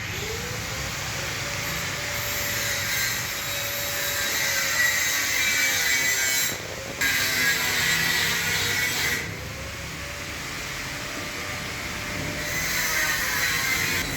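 Handheld power tool grinding on a surface. Its motor whine rises as it spins up, then holds steady under a harsh grinding hiss. It breaks off briefly about halfway through and runs lighter for a few seconds near the end.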